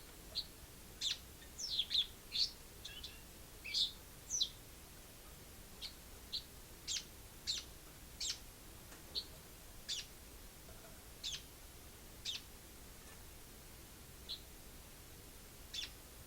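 Pet Eurasian tree sparrow chirping: short high chirps, a quick run of them in the first few seconds, then single chirps spaced about a second apart.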